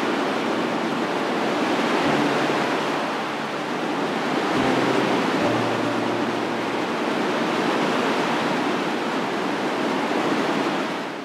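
Steady rush of sea waves and surf, which starts to fade away near the end.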